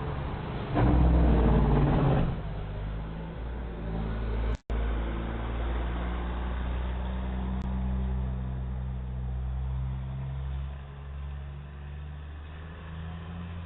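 A steady low mechanical hum, with a louder rush of noise for about a second and a half near the start and a brief dropout about a third of the way in.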